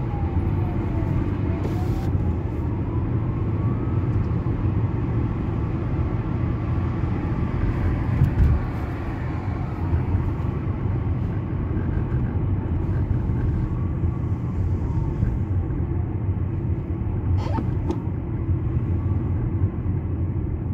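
Car running steadily in third gear, heard from inside the cabin: an even low rumble of engine and tyre noise, with a faint tone slowly sliding up and down behind it.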